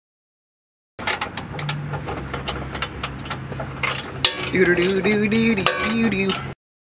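Sharp metallic clicks and knocks as a new rear shock absorber is worked by hand into its upper mount on the frame, over a steady low hum. In the second half a muffled voice-like murmur joins in.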